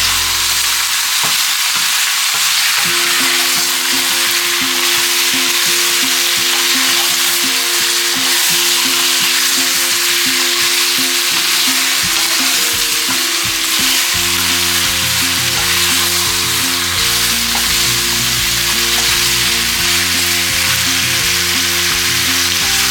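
Chicken pieces frying in hot oil with sesame oil in a pan, sizzling steadily as they are stirred, over light background music.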